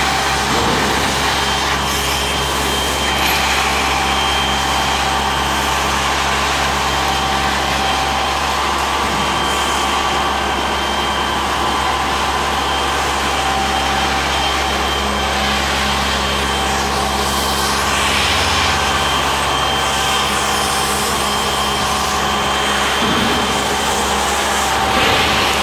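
Industrial grain-and-flour suction machine running steadily, its floor nozzle sucking up spilled cornmeal from a concrete floor.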